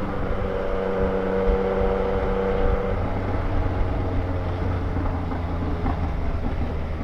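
Yamaha Tracer 900 GT's three-cylinder engine running through a 3-into-1 aftermarket exhaust while riding, its tone dropping about three seconds in.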